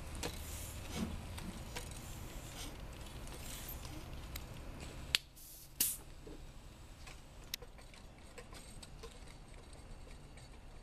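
Hand air pump being worked to pressurise a homemade pneumatic airgun, with repeated hissing pump strokes. A few sharp clicks come about halfway through, after which it goes quieter.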